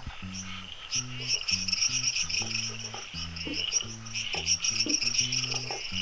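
Night insect chorus of crickets, a steady high trilling, over background music with a low bass line stepping from note to note.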